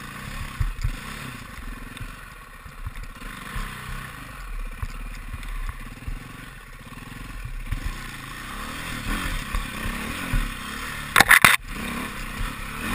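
KTM enduro dirt bike engine running on a forest trail, its pitch rising and falling as the throttle is worked at low speed, with the bike clattering over rough ground. A few loud, sharp knocks come about eleven seconds in.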